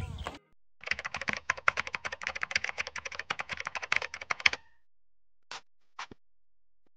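Computer keyboard typing sound effect: a fast run of key clicks lasting about four seconds, then two single clicks.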